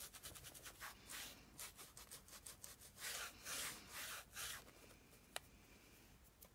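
Faint, irregular rubbing and rustling of paper being handled and smoothed by hand, with one light click about five seconds in.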